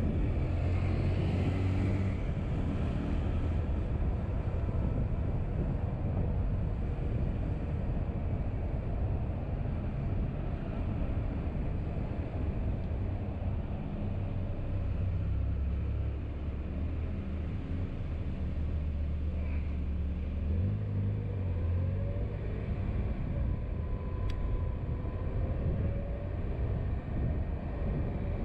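Steady road and engine rumble of a car being driven, with a low hum that shifts in pitch now and then.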